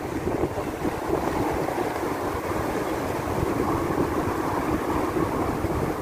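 Steady outdoor rumble of wind buffeting the microphone mixed with traffic noise from an elevated toll road overhead.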